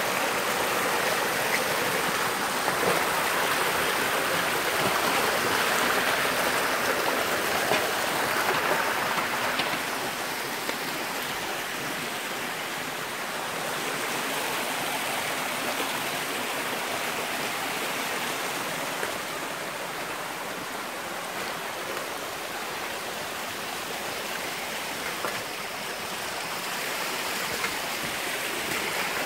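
Muddy stream running over stones, a steady rush of water, a little louder in the first ten seconds.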